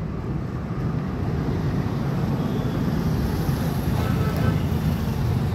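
An engine idling close by, a steady low rumble.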